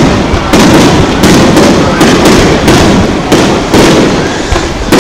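Aerial fireworks shells bursting in quick succession, about two loud booms a second, each trailing off before the next.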